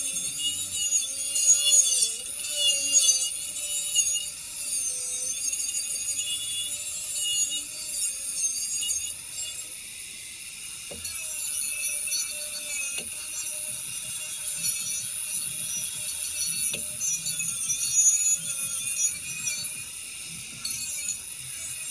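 Continuous abrasive rubbing and scraping, as in sanding or wire-brushing the spare wheel, its pitch wavering as the pressure changes, with a few sharp knocks in the second half.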